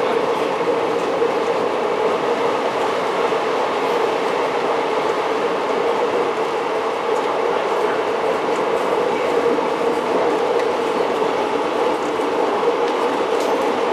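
Diesel 'Tin Hare' rail motor running along the line, heard from on board: a steady drone of engine and wheels on rail that holds even throughout.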